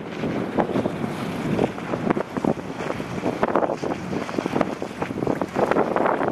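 Wind buffeting the microphone outdoors by the water: a rough, uneven rushing that swells and drops in gusts.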